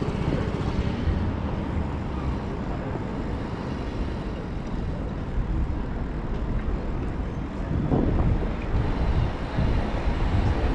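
City-centre road traffic heard from a moving bicycle: a steady low rumble of passing motor vehicles, louder in stretches from about eight seconds in.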